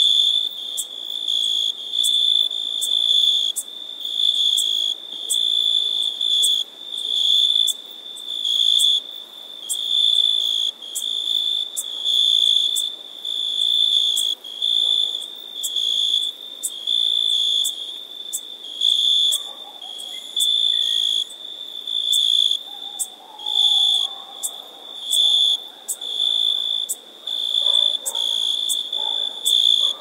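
Cricket chirping: a high, steady-pitched trill broken into regular chirps about one a second.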